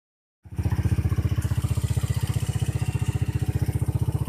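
Honda TMX 125's single-cylinder four-stroke engine idling with a rapid, even putter, cutting in suddenly about half a second in. It is running again, the starting trouble traced to a plastic wrapper sucked into the air filter inlet.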